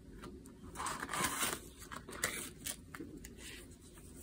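Soft rustling and crinkling of a clear plastic cash envelope and paper banknotes being handled, in short bursts with small clicks, the main ones about a second and two seconds in.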